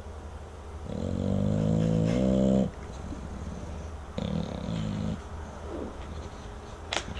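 English bulldog snoring: a long, loud pitched snore of about a second and a half, then a shorter, softer one a couple of seconds later, with a few short sharp sounds near the end.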